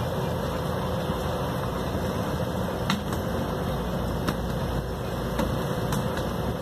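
An engine running steadily, with a few sharp knocks scattered through it from about three seconds in.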